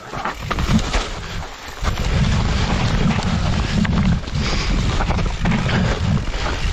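Mountain bike rolling down a wet, leaf-covered dirt trail: tyres running over leaves and stones, with a few sharp knocks. Wind buffets the helmet-mounted camera's microphone, a low rumble that grows strong about two seconds in.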